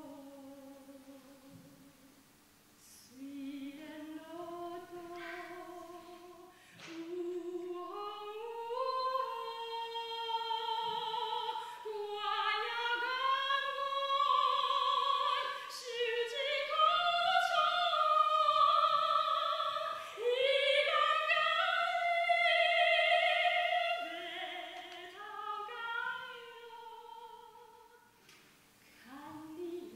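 A woman singing solo in a trained classical style with vibrato. She starts softly, swells to loud, high sustained notes through the middle and eases off near the end.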